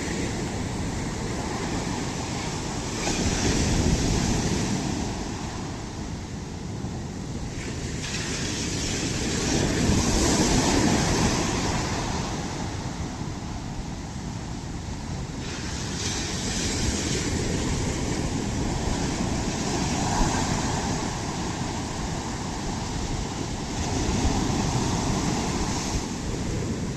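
Ocean waves breaking on the shore, a continuous rush that swells with each wave every few seconds and eases between them, with some wind on the microphone.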